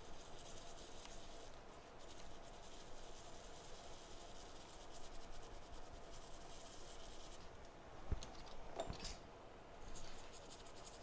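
Faint scrubbing and rubbing of a cleaning tool over a circuit board wet with contact cleaner, going on with short pauses, with a couple of small clicks near the end.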